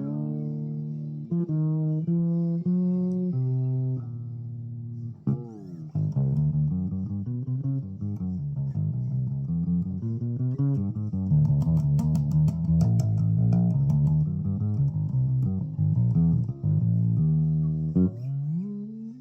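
Solo bass guitar improvisation. It opens with held notes, moves into a busy run of quick notes about six seconds in, with sharp percussive clicks in the middle, and ends with a note sliding upward.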